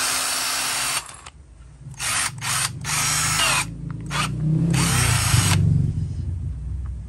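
Hart 20V brushed cordless drill/driver run by trigger in short bursts: one of about a second at the start, then four shorter ones over the next few seconds.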